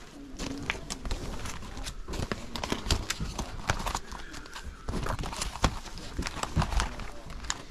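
Irregular knocks and clicks, one after another, with faint voices behind them.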